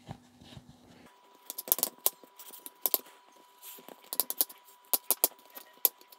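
Alcohol prep pad wiped over a phone's glass screen in a plastic installation tray, cleaning it: irregular scratchy rubbing with many sharp little clicks.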